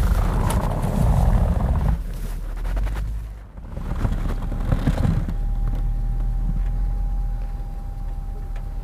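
Off-road vehicle engine running under load, loudest in the first two seconds, with a brief drop about three and a half seconds in and a thin steady whine through the second half.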